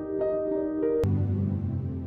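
Background music: soft piano-like notes, then about a second in a click and a switch to a low held chord that begins to fade.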